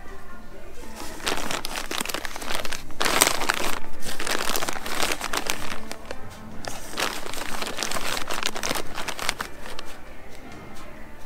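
Plastic packaging of bagged rope crinkling in irregular bursts as a hand pushes in among the packs on a store shelf, with music playing underneath.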